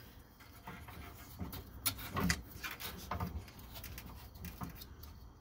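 Faint rustling and a few light taps and clicks from hands sliding a strap along a new collapsed shock absorber and fitting it to its lower mount.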